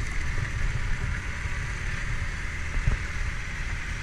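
Boat under way: the engine running with a steady low rumble and water rushing past the hull, with a short knock about three seconds in.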